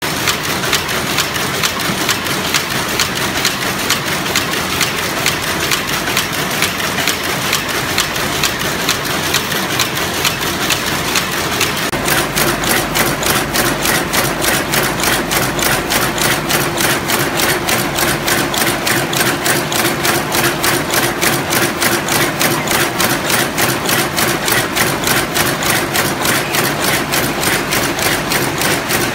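Industrial power looms weaving, a loud, fast and even clatter of the loom's repeated strokes. About twelve seconds in the clatter becomes more regular, with a steady hum under it.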